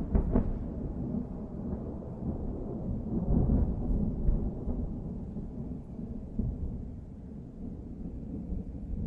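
Thunder rumbling low and rolling after a clap, swelling again about three seconds in and then slowly fading.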